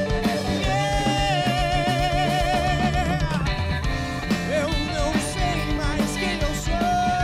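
Live blues-rock band playing: electric guitar, bass guitar and drum kit. A long held note with wide vibrato rides over them from about a second in, and another starts near the end.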